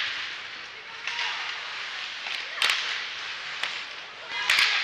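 Ice hockey skates scraping and stopping on the ice in short hissy bursts, three of them, the last two the loudest, with a couple of sharp clacks of sticks and puck in between.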